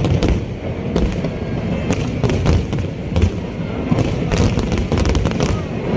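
Aerial fireworks going off: an irregular string of sharp bangs and crackles over a continuous low rumble.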